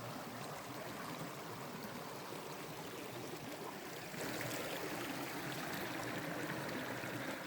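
Creek water running over rocks: an even rushing sound that gets a little louder about four seconds in.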